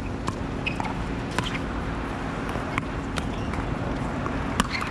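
A pickleball rally: paddles hitting the hollow plastic ball with sharp pops, about five clear strikes a second or so apart, the loudest near the end, over a steady outdoor background hum.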